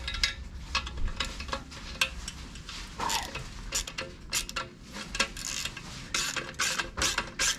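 Ratchet wrench with an extension working the bolts of a motorcycle's exhaust pipes, making irregular metallic clicks and clinks several times a second as the stock pipes are loosened.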